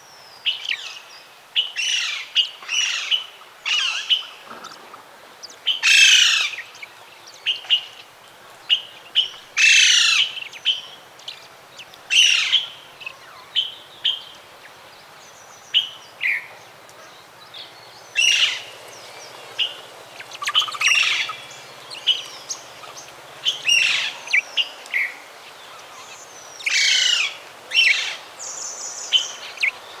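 Birds calling: a busy mix of short high chirps and louder, sharp sweeping calls that come every few seconds, from more than one kind of call.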